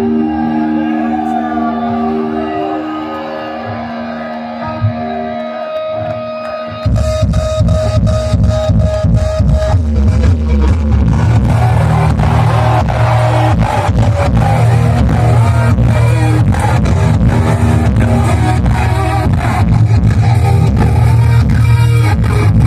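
Live heavy-metal band through stadium sound, recorded on a phone: sustained electric-guitar notes ring out, then about seven seconds in the full band comes in with a fast pounding drum beat and distorted guitars. The recording sounds muddy and overloaded.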